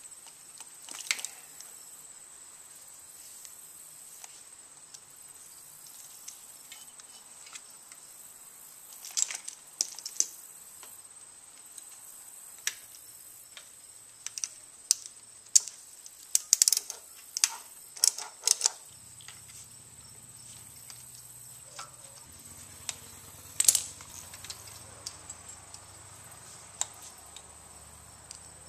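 Scattered small plastic clicks and rattles of motorcycle wiring-harness connectors and wires being handled, some in quick bunches, over a steady faint high whine. A low hum comes in about two-thirds of the way through.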